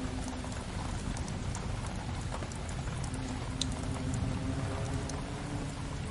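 Steady rain with a fireplace's wood fire crackling over it, scattered small pops and one sharper snap about halfway through.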